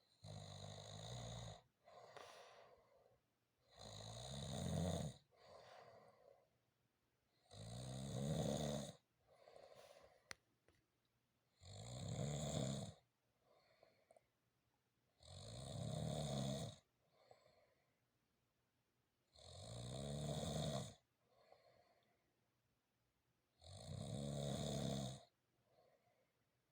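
A person snoring in deep sleep, with a loud pitched snore about every four seconds, seven in all, and a quieter breath between each.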